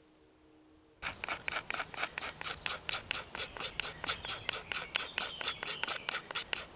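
The wood saw of a Victorinox Handyman Swiss Army knife rasping at resin-soaked pine (fatwood). Quick, even strokes of about six a second begin about a second in.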